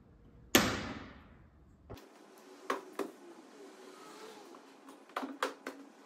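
A sharp knock about half a second in, then a few light clicks and snaps as plastic trim covers in a BMW E90's boot lining are worked loose by hand.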